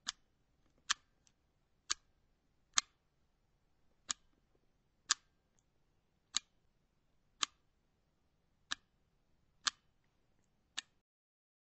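A series of sharp, short clicks, about one a second and eleven in all, at slightly uneven spacing.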